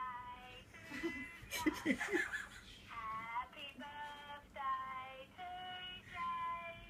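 A simple tune of separate held notes, each about half a second long, with a short noisy sound about two seconds in.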